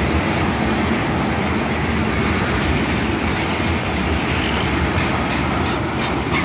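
Freight train of tank cars rolling past close by: a steady rumble of steel wheels on rail, with sharper clacks over the rail joints in the last second or so.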